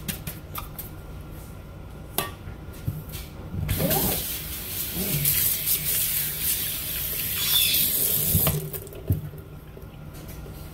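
Water running from a pull-down kitchen faucet sprayer into a stainless steel sink for about five seconds, starting and stopping abruptly as the sink is rinsed. A few light knocks come before it.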